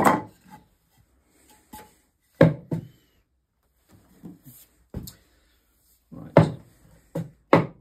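Several sharp wooden knocks a second or two apart, the loudest about two and a half and six and a half seconds in: a length of spruce being stood on end and knocked into place on a wooden chopping block, ready for riving.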